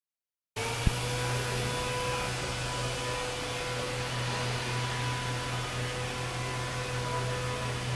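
Steady machine hum with a faint, even whine above it, starting suddenly about half a second in, with a single sharp click just under a second in.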